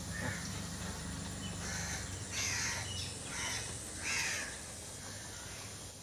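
A crow cawing: about five harsh calls in the first four seconds, the loudest near the middle, over a faint steady low hum.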